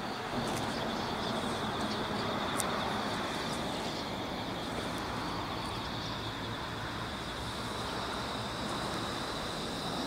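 Steady outdoor ambience: distant road traffic hum, with a steady high-pitched trill over it and a single faint click.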